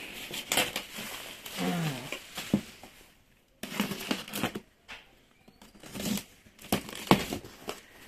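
Bubble wrap and cardboard packaging being handled: irregular crinkling and rustling with scattered sharp taps, louder in the first half and pausing twice briefly midway.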